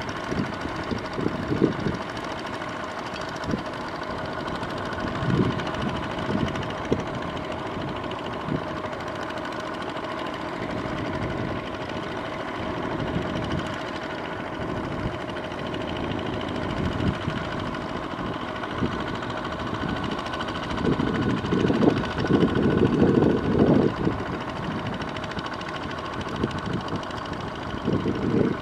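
Two-wheel walking tractor's single-cylinder diesel engine running steadily as its cage wheels churn through flooded paddy mud. Irregular low rumbles come and go over it, loudest a little past two-thirds of the way through.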